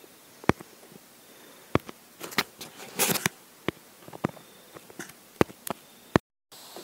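Scattered sharp clicks and taps, about ten in all at uneven intervals, over low room noise, with a short rustle about three seconds in. The sound cuts out completely for a moment near the end.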